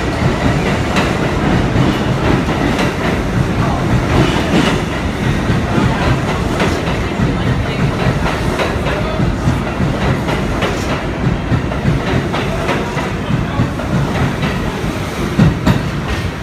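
R62A subway train pulling out of the station, its wheels clacking over rail joints with a steady rumble. The sound eases off slightly near the end as the last cars enter the tunnel.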